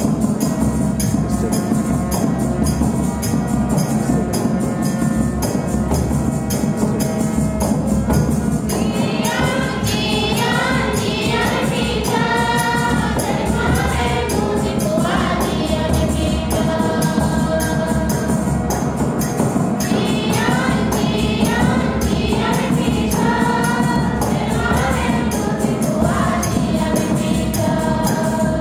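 Choir and congregation singing a communion hymn over sustained instrumental accompaniment with a regular hand-percussion beat. The first stretch is instrumental; the voices come in about nine seconds in and carry on with a brief pause near the middle.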